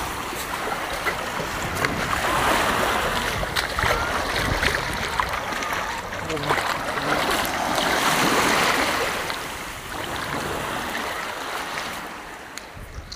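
Small waves washing on a shell-and-sand beach and water swishing around a shrimp net frame being dragged through the shallows by its ropes. The wash rises and falls in swells and grows quieter near the end.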